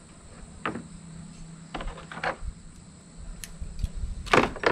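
Scattered light metallic clicks and knocks of ground-wire ring lugs and hand tools being handled in a car's engine bay, with a louder clatter near the end.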